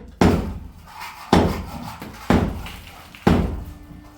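Heavy strikes repeated steadily about once a second, each sharp at the start and fading out before the next.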